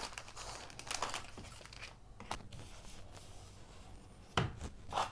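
Plastic packaging rustling and crinkling as it is handled, with a few short taps of game cards being set down on a tabletop, the loudest two near the end.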